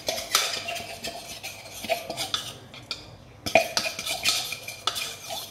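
Spoon scraping and clinking against a dish in quick, irregular strokes, scraping out the last of the dry-fried whole spices; the sharpest clink comes about three and a half seconds in.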